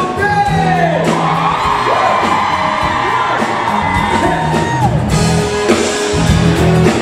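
A live band plays with singing, long sliding notes over the band, and whoops from the audience.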